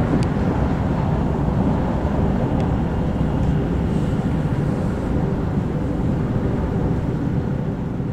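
Steady rumble of a train running at speed, heard from inside a passenger carriage: wheels on rails and the carriage's own running noise.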